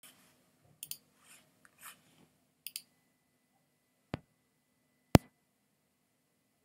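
Handling noises: soft rustles and light clicks, then two sharp knocks about a second apart, the second the loudest. A faint steady high tone starts about three seconds in.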